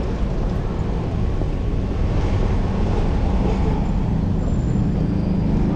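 Wind rushing over a body-mounted action camera and road noise while a fixed-gear bicycle is ridden through city traffic. A steady low hum joins near the end.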